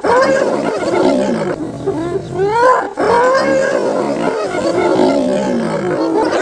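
Spotted hyenas calling in a loud, overlapping chorus of rising whoops and excited giggles as they mob a lion, mixed with the lion's snarls. The calls break off briefly about three seconds in, when the lion lunges into the pack.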